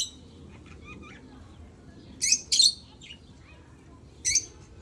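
Small birds chirping: short, high, loud chirps in quick pairs about two seconds in and once near the end, with fainter calls between.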